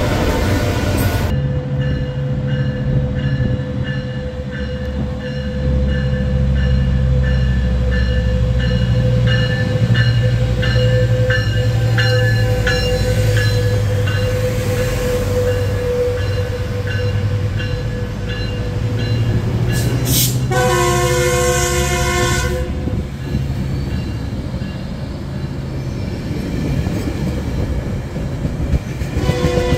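A double-stack freight train rumbles past at first. Then a Metrolink diesel locomotive and its bilevel coaches run close by with a steady engine drone and a repeated ringing. The multi-chime horn sounds for about two seconds roughly two-thirds of the way in and starts again near the end.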